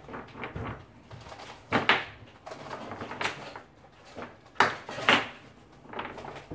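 About half a dozen separate knocks and clacks of small wooden rolling pins handled on a tabletop, the loudest about two seconds in and again near five seconds.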